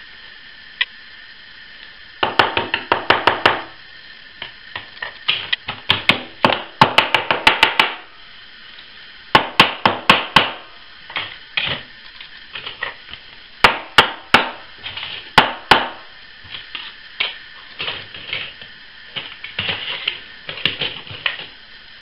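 Hard plastic pieces clacking and knocking together against a hard surface in quick bursts of sharp taps, with short pauses between the bursts.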